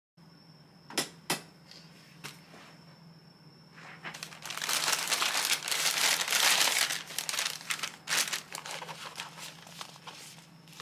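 Stiff paper tea pouches crinkling and rustling as they are handled, loudest in the middle. Two sharp clicks about a second in.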